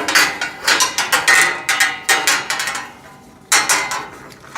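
Rack parts knocking and clanking as they are handled and fitted together during assembly: a quick string of sharp clanks for the first two and a half seconds, then a pause and one more clank.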